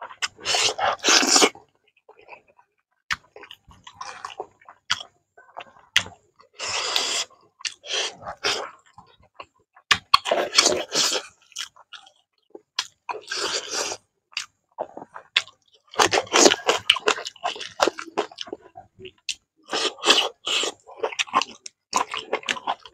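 A person eating fish and rice by hand close to the microphone: wet chewing in loud bursts every few seconds, with short clicks and crunches between them.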